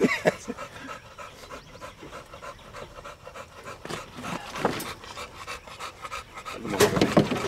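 A black mouth cur hog dog panting.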